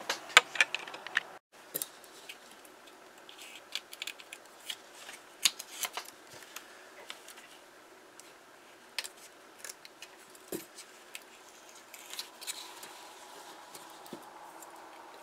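Small surgical scissors snipping and clicking in short irregular bursts as they cut the knee guards off a doll's legs, with a quick cluster of the loudest snips about the first second.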